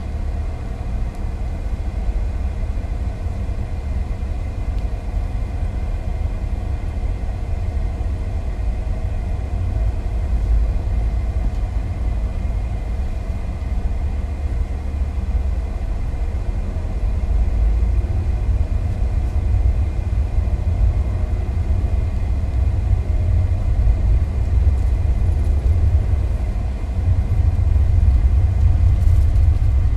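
Steady low drone of road and engine noise inside a moving car's cabin, swelling a little near the end.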